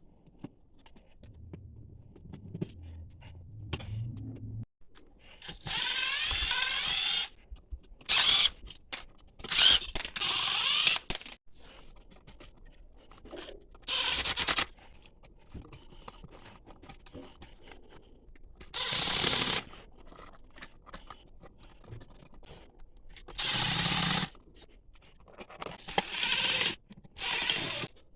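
Cordless drill/driver running in short bursts, about seven times, with small clicks and scrapes between them, as it drives screws out of an outlet and its cover plate.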